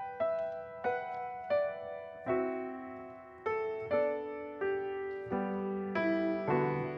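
Solo grand piano playing a slow, gentle piece: chords struck a little more than once a second, each left to ring and fade.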